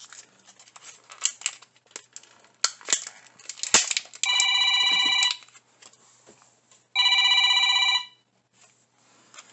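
Clicks and rustles of a plastic toy capsule and its packaging being handled and opened, then an electronic ringing tone, like a phone ringing, sounding twice for about a second each with a pause between.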